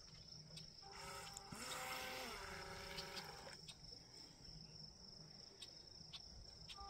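Pro Boat Jet Jam RC jet boat's small brushed electric motor and jet pump whining faintly for about two and a half seconds, the pitch stepping up and then back down as the throttle is worked, then cutting off. A steady high insect trill runs underneath.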